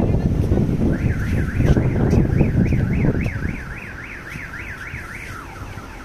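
Electronic alarm tone warbling rapidly up and down, about three times a second, for about four seconds, typical of a car alarm. A loud low rumble runs under it for the first three seconds or so, then dies away.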